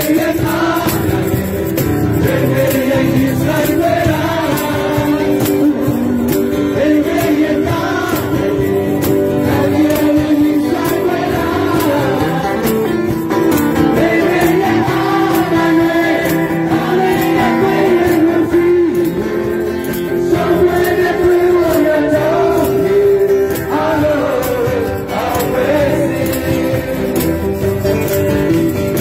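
A group of men singing together in unison to strummed acoustic guitars and a shaken tambourine, at a steady beat.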